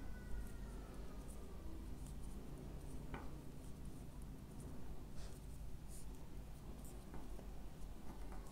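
Metal knitting needles ticking lightly against each other and yarn rubbing as stitches are purled, a faint scratchy sound with scattered small clicks.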